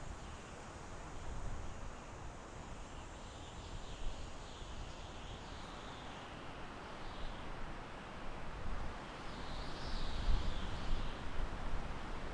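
Soft wind blowing through forest trees, rustling the leaves, growing gustier in the second half with low rumbles of wind on the microphone.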